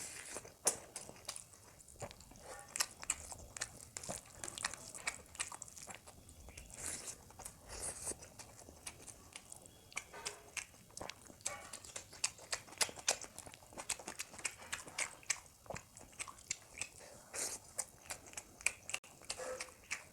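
A person biting and chewing a chicken leg piece close to the microphone, with a steady run of wet smacks and sharp crunchy clicks.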